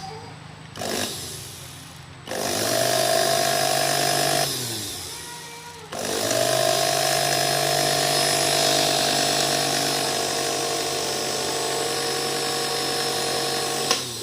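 National blender's electric motor switched on for test runs: a brief blip, a run of about two seconds that winds down, then a steady run of about eight seconds with a steady hum and whine. Its carbon brushes and commutator have just been cleaned with 1000-grit sandpaper to cure a smell and a coughing, uneven running.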